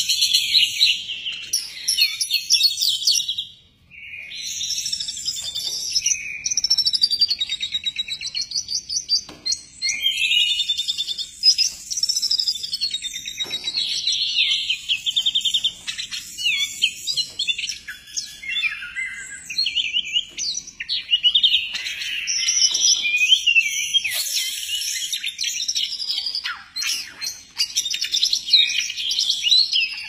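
Caged oriental magpie-robin (kacer) singing hard and almost without pause: a fast, varied, high-pitched run of whistles, trills and chirps, with one short break about four seconds in.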